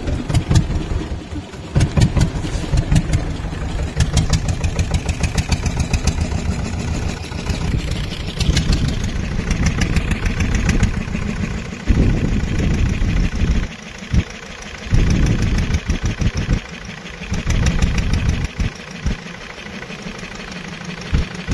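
Fishing boat's engine running, a loud, fast low pulsing that drops away and comes back several times in the second half.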